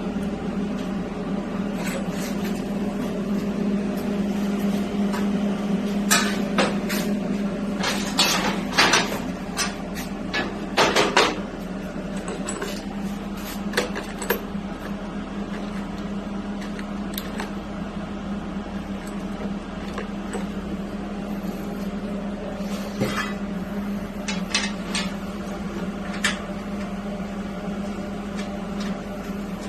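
Metal clinks and knocks of hand tools and steel parts being handled, in two bunches of several sharp hits, over a steady hum.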